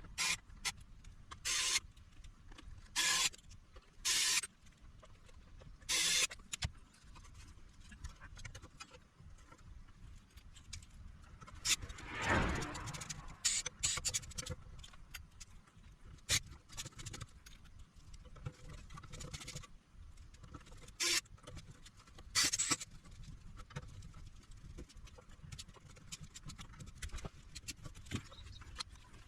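Irregular handling noises at a repair bench: short clicks and knocks with a few brief hissy scrapes, and one longer rustling swell about twelve seconds in.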